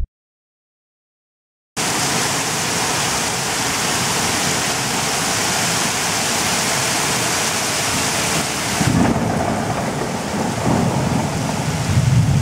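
Heavy rain pouring steadily in a thunderstorm, with low thunder rumbling in about nine seconds in and again near the end. The first second and a half or so is silent.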